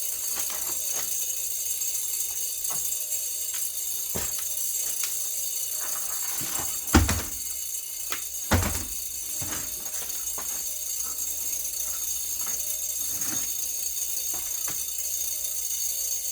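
Background music with a steady jingling, tambourine-like high end. Scattered light clicks run under it, with two louder knocks about seven and eight and a half seconds in.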